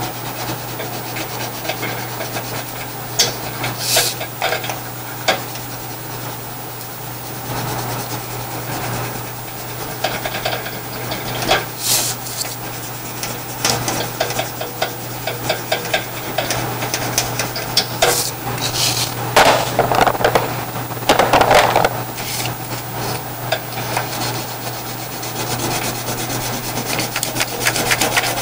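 Coloured pencil and wax crayon rubbing on paper in quick back-and-forth shading strokes, with a few louder strokes along the way.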